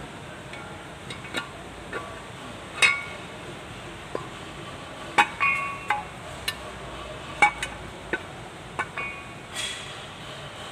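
Steel and cast-iron tractor rear-axle parts clinking and knocking against each other as they are handled, about a dozen sharp clinks, some ringing briefly, the loudest about three, five and seven and a half seconds in.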